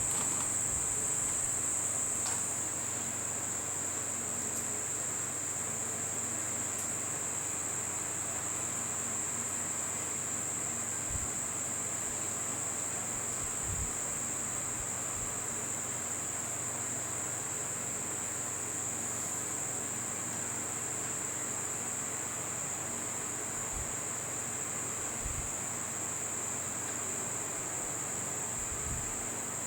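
Steady high-pitched insect chorus, unbroken throughout, with a few faint low bumps.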